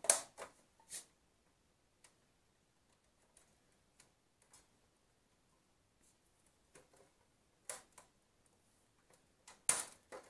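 Plastic clicks and snaps from an LCD monitor's front bezel as its clips are pressed and pried loose by hand. A few sharp clicks at the start, scattered faint ticks, then louder snaps near the end.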